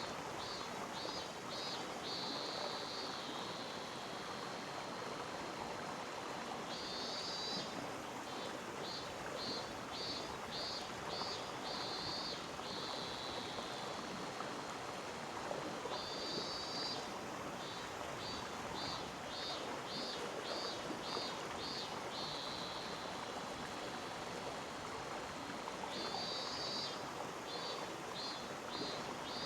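Mountain stream flowing steadily over rocks. A high animal song repeats three times over it, about every nine seconds: a short buzzy phrase, a quick run of pulsed notes, then a long falling note.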